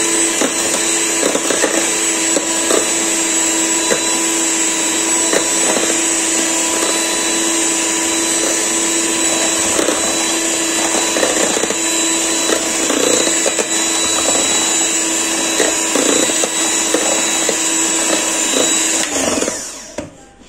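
Silver Crest electric hand mixer running steadily with a whine as its twin beaters whip sponge-cake batter in a bowl. The motor switches off near the end.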